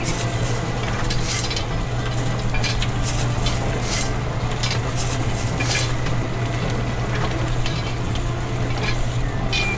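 Small electric gear motor of a model wheat sieve humming steadily, with wheat grains rattling in short irregular bursts as they are scooped and shaken across the wire-mesh screen.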